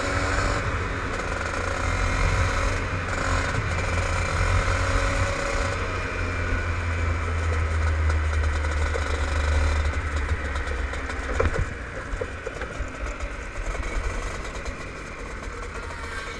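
Onboard sound of a Rotax two-stroke kart engine running at speed; about eleven and a half seconds in it drops off to a lower, rougher sound as the kart slows.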